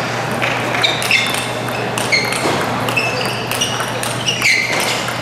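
Table tennis rally: the celluloid ball knocking back and forth off the rubber rackets and the table, about two hits a second at an uneven pace, each with a short high ring, over a steady crowd murmur in a large hall.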